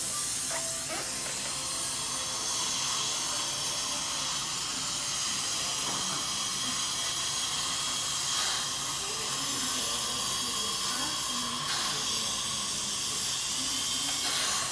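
Dental equipment at the chair hissing steadily without a break, the sound of compressed air, water spray or suction running.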